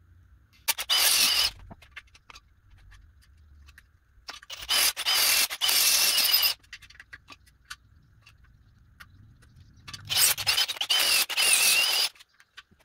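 Cordless drill boring a 27/64 in. hole into a cast-iron engine block through a fixture's drill guide, in three bursts. The bit squeals as it cuts: a short burst about a second in, then two longer runs in the middle and near the end.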